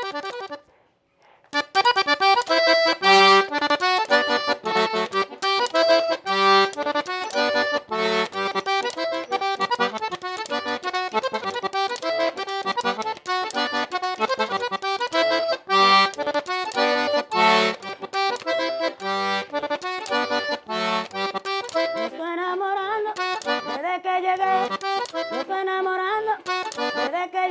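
Red Hohner Hohnica diatonic button accordion playing a tune over rhythmic bass notes. It starts about a second and a half in, after a brief silence.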